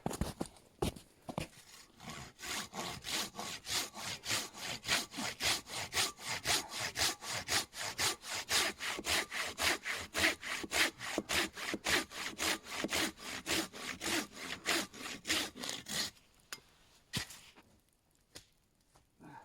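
Hand saw cutting through a log in fast, even back-and-forth strokes that stop near the end.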